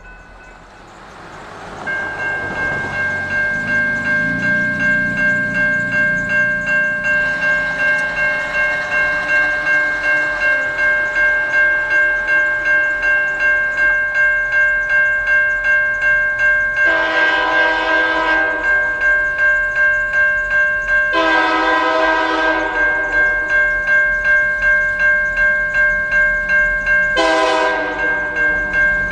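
Railroad grade-crossing warning bell ringing in quick even strokes, about two a second. An approaching locomotive's horn sounds two long blasts and then a shorter one, the long-long-short opening of the crossing signal.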